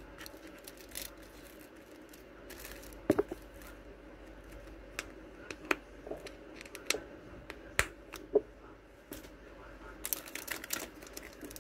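Clear plastic packaging being handled and pulled open: crinkling, with scattered sharp clicks and taps, and denser crinkling near the end.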